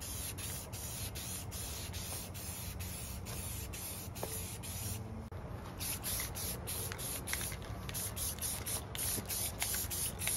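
Rust-Oleum aerosol spray-paint can spraying in a long run of short hissing bursts, with a brief pause about five seconds in.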